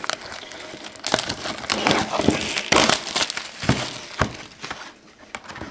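Trading card packs in their wrappers being handled and pulled out of the box: irregular crinkling and crackling with a few sharper crunches, dying down near the end.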